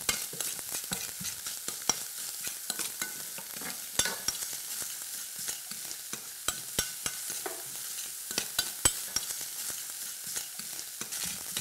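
Diced bacon sizzling steadily as it browns in a little oil in a stainless-steel saucepan, stirred with a spoon, with scattered short clicks and knocks of utensils.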